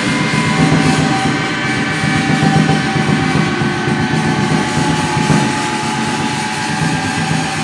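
Improvised percussion: a stick worked against drum and metal makes a continuous grinding drone, with fast fine pulsing and several steady ringing tones over it.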